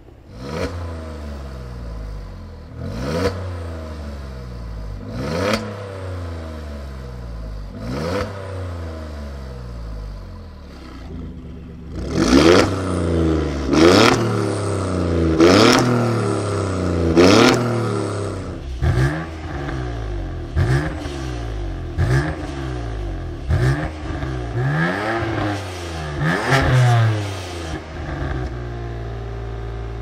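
Free revs at a standstill from a BMW M4 F83's 3.0 twin-turbo inline-six and an Alfa Romeo Giulia Quadrifoglio's 2.9 twin-turbo V6, both on decat custom exhausts. The engine revs up and falls back to idle about four times. From about twelve seconds in, the Alfa, with its exhaust valves open, revs louder. A run of quicker, shorter blips follows.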